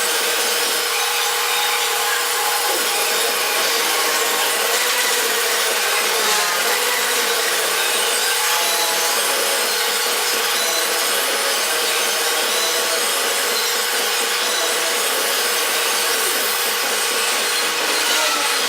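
Centerless grinder running, its grinding wheel working a long bar stock: a steady, hissing grinding noise over a constant machine hum.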